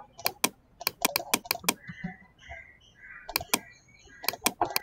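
Computer keyboard keystrokes and mouse clicks: sharp clicks in irregular bunches of two to six, with a pause of about a second in the middle.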